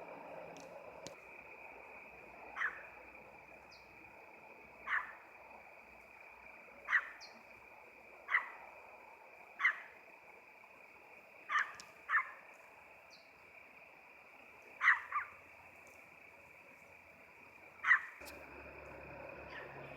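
Short sharp animal calls, about ten of them every second or two, some in quick pairs, over a steady high-pitched hiss.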